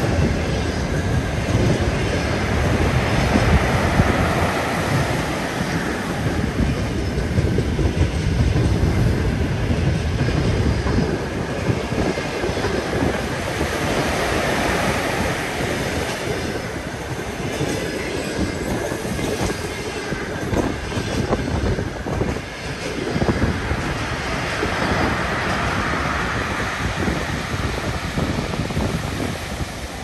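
Stormy sea surf breaking on the shore: a deep steady rumble, with a big wave crashing about every eleven seconds.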